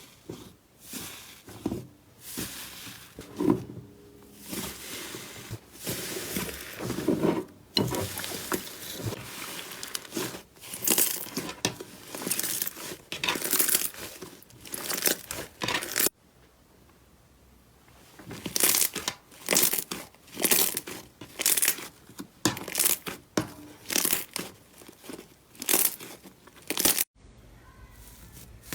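Slime being squeezed and pressed by hand, making crackling, crinkling sounds in repeated bursts, about one or two a second. The sound cuts off abruptly about sixteen seconds in and again near the end, as one slime clip gives way to another.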